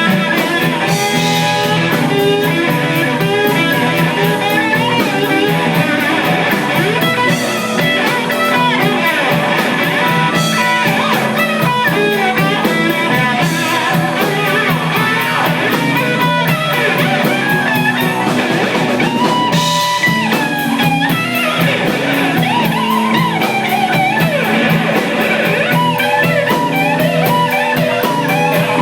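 Live blues band playing: a lead electric guitar with bent notes over a steady drum kit beat.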